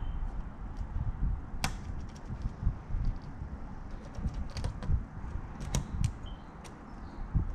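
Scattered light clicks from a Lishi KW1 pick working the pins inside a Kwikset deadbolt, over a low rumble.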